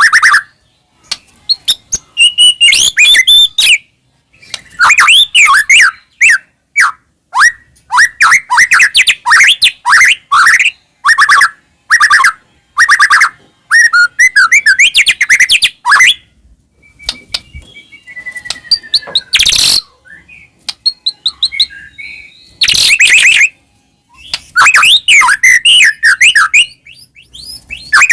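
White-rumped shama singing loudly in rapid phrases of varied whistles, slides and chattering notes, each phrase one to two seconds long with short pauses between, a few of the notes harsh and rasping.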